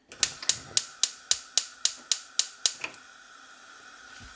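Gas hob spark igniter clicking rapidly, about four clicks a second, as the burner is lit under the pan. The clicking stops about three seconds in, leaving a faint steady hiss.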